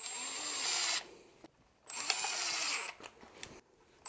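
Cordless power driver running in two bursts of about a second each, one ending about a second in and one about two seconds in, driving screws that fasten cabinet mounting clips to a wooden block.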